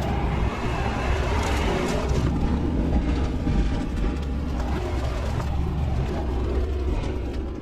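Bobcat T650 compact track loader running steadily as it crawls forward on its tracks, with a continuous low engine rumble and scattered light scraping and clatter, heard from inside the closed cab.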